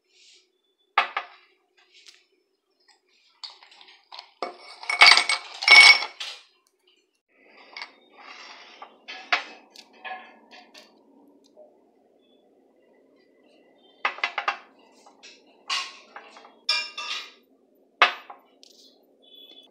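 Glassware clinking and knocking on a glass tabletop as a jar of kiwi marmalade and a drinking glass are handled, loudest about five seconds in. Near the end, ice cubes clink sharply into a drinking glass.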